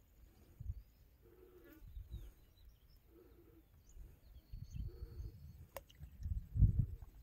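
Outdoor ambience: wind buffeting the microphone in irregular low gusts, with faint bird chirps and distant animal calls. A single sharp click comes just before six seconds in.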